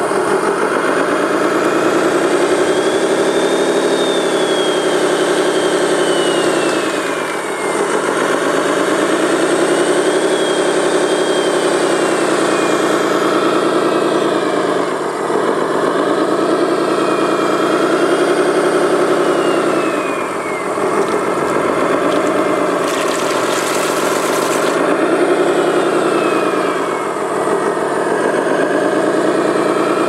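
Radio-controlled Komatsu wheel loader model running, its diesel-style engine note rising and falling every six seconds or so as it works the bucket. After each rise a thin high whistle slides down in pitch.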